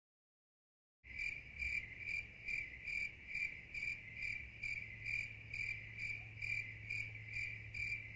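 Cricket chirping in a steady, even rhythm of a little over two chirps a second, starting about a second in after silence, over a low steady hum.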